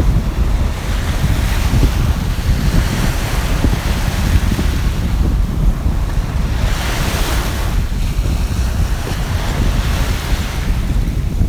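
Sea surf washing onto the shore, swelling twice, with strong wind rumbling on the microphone.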